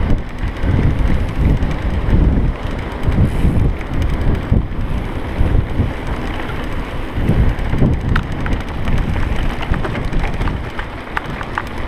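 Wind buffeting the microphone of a riding mountain biker's camera, a heavy, uneven rumble over the noise of the bike rolling on a dirt trail. From about two-thirds of the way in, a run of quick, light clicks and rattles.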